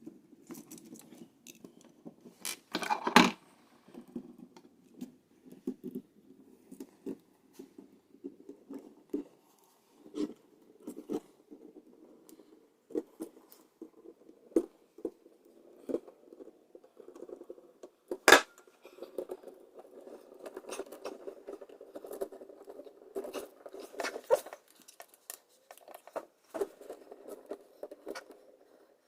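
Small clicks, scrapes and rustles of copper wires being handled and twisted together under plastic wire nuts, with two sharper clicks, one about three seconds in and one past the middle.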